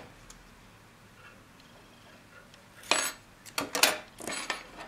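Metal scissors snipping yarn ends: a quick cluster of four or five sharp metallic clicks starting about three seconds in, after a few seconds of quiet.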